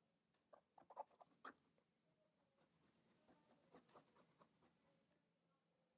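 Very faint strokes of a watercolour paintbrush on paper, a quick run of light scratchy brushing after a few soft taps in the first couple of seconds.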